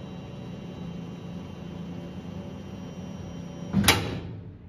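Thunder Laser Nova 35 laser cutter running with a steady hum and faint high whine as it autofocuses. About four seconds in, its emergency-stop button is hit with one sharp clack, and the machine's noise dies away as everything stops.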